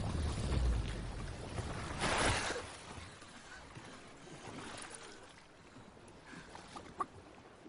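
Ocean waves and water washing around a boat, swelling about two seconds in and then fading lower.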